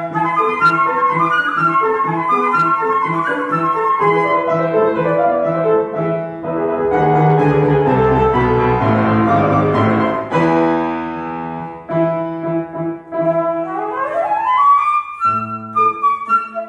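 Concert flute and grand piano playing a fast classical piece together. Around the middle the piano plays heavy low chords under the flute, and near the end a quick rising run leads back into the melody.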